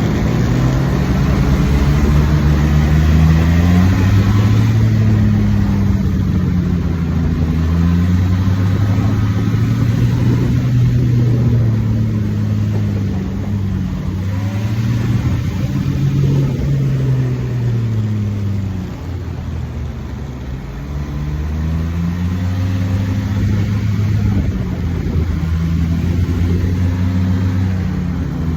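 Snowmobile engine running under way, its pitch rising and falling again and again as the throttle opens and eases off.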